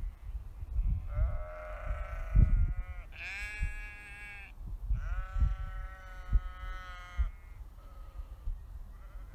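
Sheep bleating: three long, drawn-out bleats about a second apart, the second one higher, then a fainter short bleat near the end. Low, irregular thumps run underneath.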